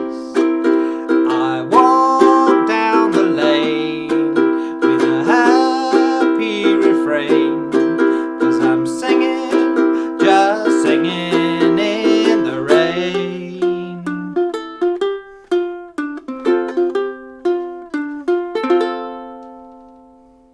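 Ukulele strumming F and C7 chords with a man singing along. About two-thirds of the way in, the strumming gives way to the song's closing riff, picked one note at a time on the open and fretted strings, and the last note rings out and fades.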